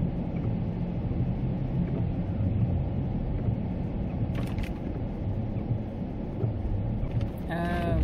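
Steady low rumble of a car's engine and tyres on wet pavement, heard from inside the cabin, with a few brief ticks about halfway through.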